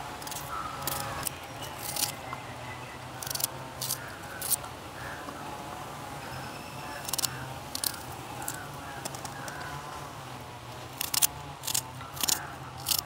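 Small kitchen knife cutting onions, with irregular sharp clicks of the blade striking the cutting surface, over a faint steady low hum.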